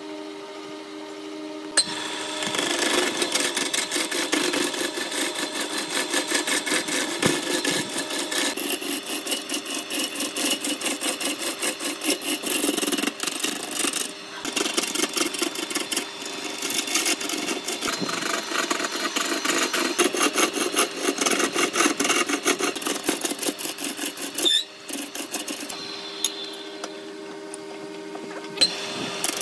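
Large wood lathe running with a steady motor hum, then a hand-held turning tool cutting into the spinning glued-up wood blank: a loud, rough scraping chatter with two brief breaks. Near the end the cutting stops, leaving the lathe's hum, and starts again just before the close.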